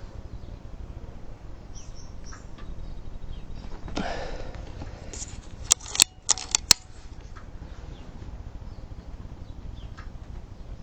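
A quick run of about five sharp, loud mechanical clicks within one second, about six seconds in, from handling the Retay T20 air rifle's action, preceded by a brief rustle.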